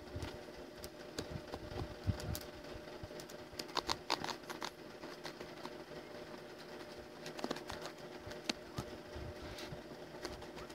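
Scattered light clicks and taps from drawing at a desk, including a quick cluster about four seconds in, over a steady low electrical hum.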